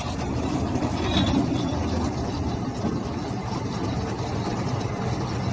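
Tractor engine running steadily with a Case IH RB454 round baler working behind it, tailgate raised, as a finished round bale of haylage is kicked out.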